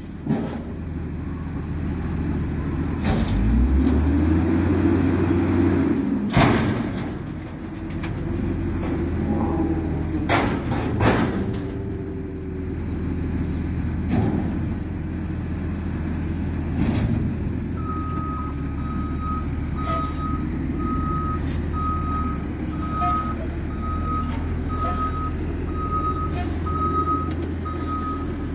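Front-loader garbage truck's diesel engine revving to drive the hydraulic arms as a dumpster is lifted over the cab, with several loud metal bangs as the bin is shaken and dumped. From about two-thirds of the way in, the truck's reversing alarm beeps steadily, a bit more than one beep a second.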